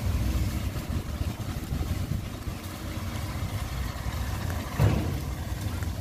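Kubota DC70 combine harvester's diesel engine running steadily with a deep rumble. A brief thump about five seconds in.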